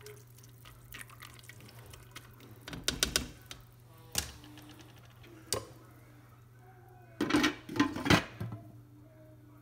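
Glass slow-cooker lid knocking and clattering as it is set onto the crock, two loud clusters of knocks near the end, after a few lighter clicks and knocks earlier on. A steady low hum underneath.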